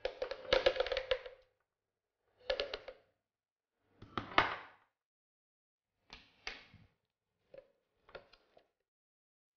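A spatula scraping and knocking around a glass bowl as a thick egg filling is scraped out into a foil-lined tin, in six short bursts that grow shorter and fainter toward the end.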